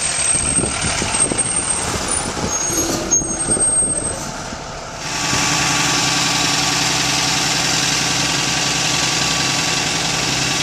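Blue Bird school bus engine idling steadily, coming in about five seconds in after uneven outdoor noise.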